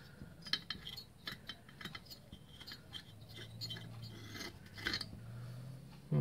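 Faint scraping and small metallic clicks of a long head stud being unscrewed by hand and drawn out of a Victa two-stroke mower engine's cylinder barrel, thread rubbing on metal. A low steady hum runs underneath in the second half.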